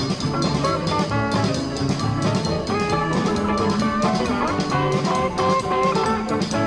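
Live electric blues band playing an instrumental passage: two guitars over a drum kit, with a quick run of single guitar notes.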